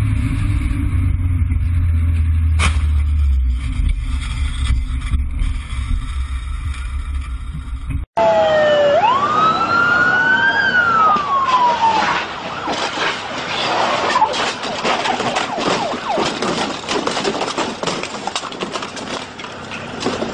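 A car engine drones low and steadily while driving. After a sudden cut about eight seconds in, a police siren wails up and down for a few seconds, followed by loud crackling street and engine noise.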